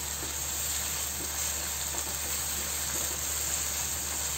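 Chopped onions sizzling steadily in hot oil in a frying pan as they are stirred with a wooden spatula. The onions are being sautéed until translucent and pink for the tempering.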